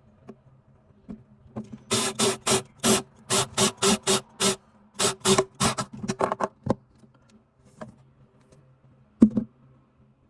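A power drill fitted with a right-angle attachment, run in a quick series of short trigger bursts, about a dozen in a row, each a brief whirr at the same pitch. A single sharp knock follows near the end.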